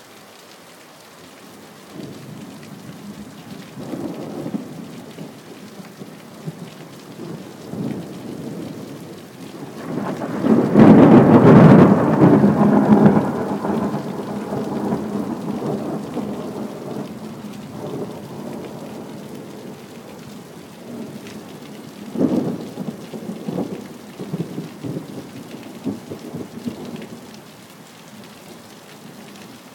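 Thunder rolling over steady rain. A long, loud peal builds about ten seconds in and fades slowly. A sharper crack of thunder comes a little past the twenty-second mark, followed by a shorter rumble.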